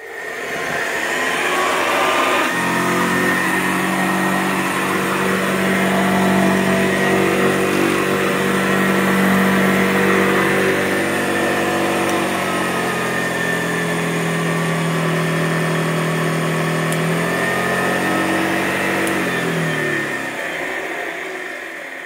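1930s Hoover Model 900 commercial upright vacuum cleaner switched on: its motor spins up, steps up in level about two seconds in, then runs steadily with its pitch shifting a few times. Near the end it is switched off and winds down.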